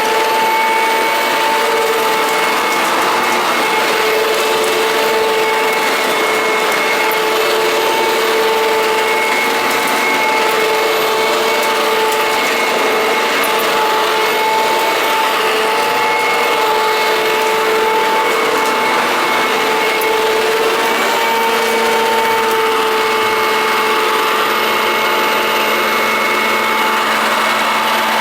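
Perfect P101 commercial upright vacuum cleaner running steadily at full speed, its motor giving a constant whine over a rush of airflow.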